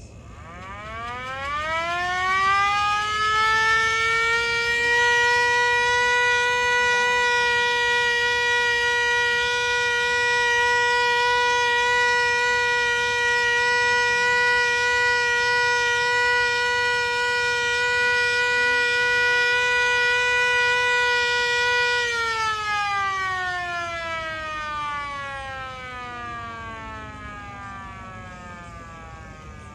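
Hand-crank siren winding up, its pitch rising over the first few seconds into a steady wail. It holds that wail for about eighteen seconds, then winds down with a long falling pitch as the rotor coasts to a stop.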